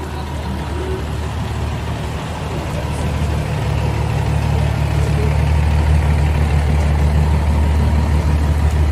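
Heavy fire truck engine idling as it rolls slowly past, a steady low hum that grows louder from about three seconds in as it comes closer.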